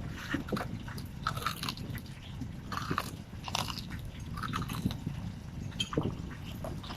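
Bites and chewing into crispy breaded fried chicken: a run of irregular crunches close to the microphone.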